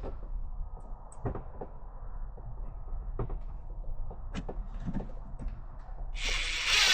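Scattered light knocks and clicks of wood and hardware being handled, then about six seconds in a loud, steady burst from a power drill starting up.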